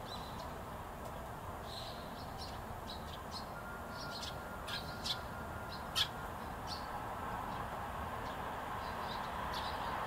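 Eurasian tree sparrows chirping: short, high chirps scattered irregularly, the loudest about halfway through, over a steady low background hum.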